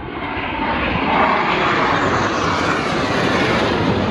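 Blue Angels F/A-18 Super Hornet jets flying past. The roar of their jet engines builds over about the first second and then stays loud.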